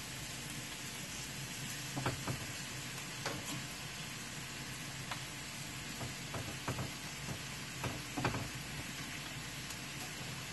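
Steaks, green peppers and onions sizzling in a cast-iron skillet, with a fork tapping and scraping against the pan a dozen or so times as the steaks are laid in.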